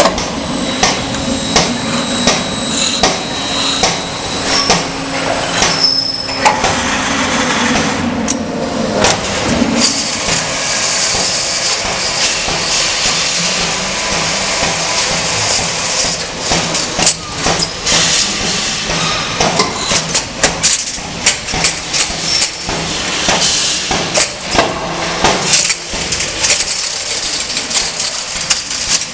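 Automatic steel-strap strapping machine at work: a motor hum with a steady high whine, then from about ten seconds in a steady hiss with many sharp metallic clicks and clanks, thickest in the second half.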